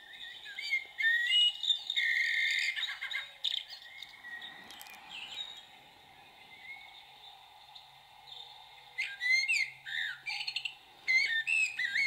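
Recorded song of a common blackbird played back from a greeting card's sound chip. Phrases of chirps and whistles come through in the first few seconds, with a quieter stretch in the middle and more song near the end.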